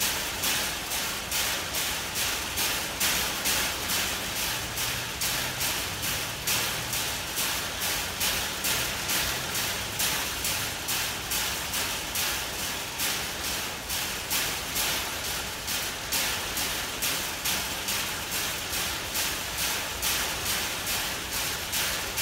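A chimpanzee striking the steel bars of its cage in a steady, even rhythm, about one and a half metallic knocks a second. This is a repetitive stereotyped behaviour (zoochosis) of a captive animal.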